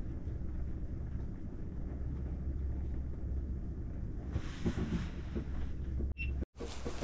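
Low steady rumble of strong wind buffeting the ice shack and the microphone, with a faint rustle and a few small clicks of rod and reel handling about four seconds in. The sound cuts out briefly near the end.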